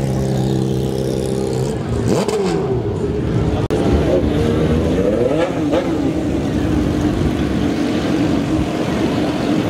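Sport motorcycle engines running at low speed, the steady hum broken by throttle blips whose pitch rises and falls sharply, about two seconds in and again around five seconds in.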